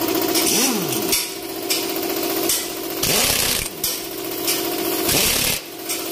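Power wrench running the stabilizer bar bushing bracket bolts in about five short bursts, each with a hiss and a pitch that sweeps as it spins up and down, over a steady hum.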